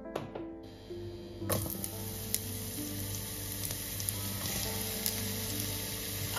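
Chopped onion frying in hot oil in a nonstick pan. The sizzle sets in about a second and a half in and keeps going steadily, with small pops and crackles.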